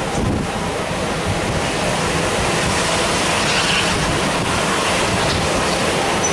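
Passenger coaches of a steam-hauled train rolling past at low speed: a steady rumble and rush of wheels on the rails.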